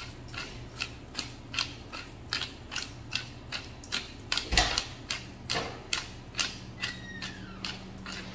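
Hand pepper mill grinding black peppercorns: a short crunch at each twist, about two and a half a second, with one louder low thump about halfway through.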